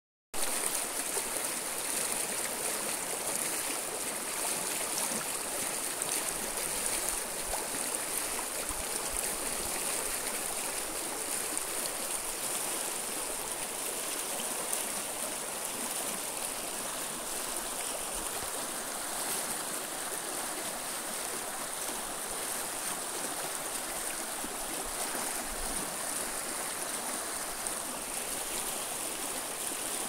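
Shallow, fast river rushing over boulders and stones: a steady churning rush of water with no breaks or changes.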